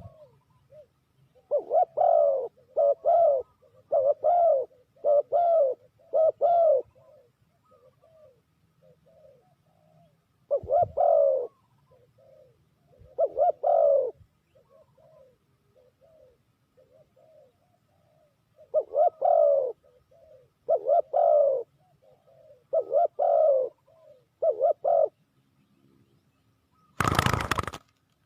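Spotted dove cooing: phrases of repeated low coos, with fainter coos in the gaps between them. A short loud rush of noise near the end.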